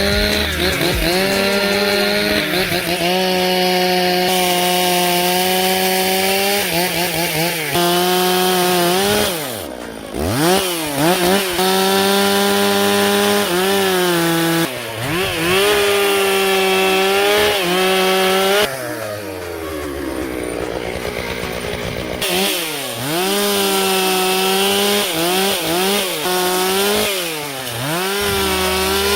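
Chainsaw running at high revs while cutting wood, its engine pitch repeatedly dipping and recovering, with a longer drop in revs a little past the middle.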